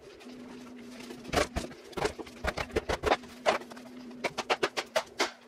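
Wooden mallet striking the leather pocket of a new Wilson A2K baseball glove on a padded block, to break in the pocket. About fifteen sharp knocks in an irregular, quickening run, starting about a second in.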